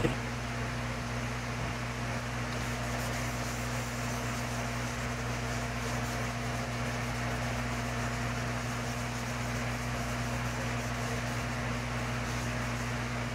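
Steady hum of an electric motor, an even drone that does not change.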